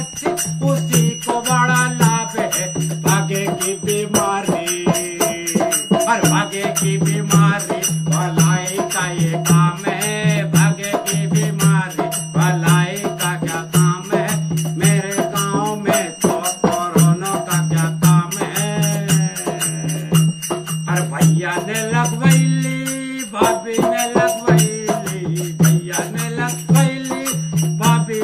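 A man singing a self-composed village song to a steady rhythmic accompaniment, with a short break in the voice about three quarters of the way through.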